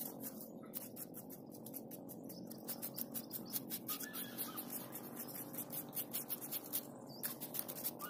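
A metal spoon and fingers scraping and digging through coarse, shell-gritty wet sand, making a fast run of small scratchy clicks over a soft steady hiss.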